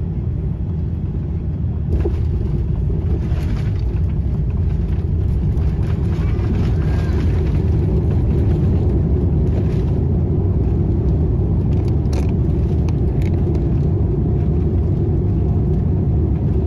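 Boeing 787-10 cabin noise while taxiing after landing: a steady low rumble of the engines at idle and the wheels rolling, a little louder about two seconds in, with a few faint clicks.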